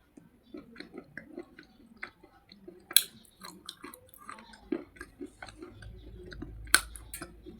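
Slate pencil being bitten and chewed close to the microphone: irregular hard crunches and snaps, a few of them loud, about 3 seconds in and near the end.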